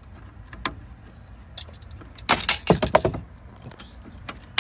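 Plastic fiber-optic connector and wiring harness handled by hand while being plugged into a BMW satellite tuner module. Scattered small clicks, a burst of rattling and rustling lasting under a second about two seconds in, and a sharp click near the end.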